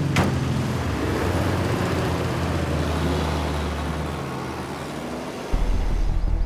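Motor vehicle engines running steadily, with one sharp knock just after the start. About five and a half seconds in, the sound changes abruptly to a louder, deeper rumble.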